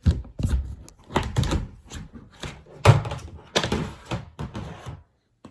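A quick, irregular series of thumps and knocks, stopping shortly before the end.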